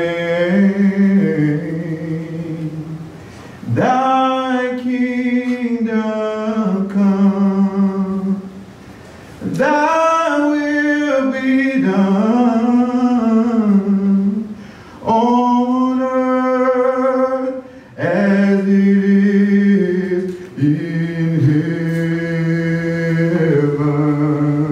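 Singing voice: long held and gliding notes in phrases of three to five seconds, with short breaks for breath between them.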